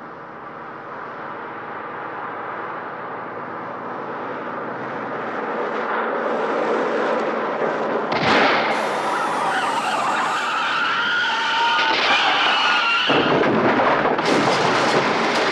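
A car approaching, louder and louder; about eight seconds in a sharp bang, a tyre blowing out or a gunshot, then the tyres screeching for several seconds until they cut off suddenly, and a loud crash as the car breaks through the bridge railing.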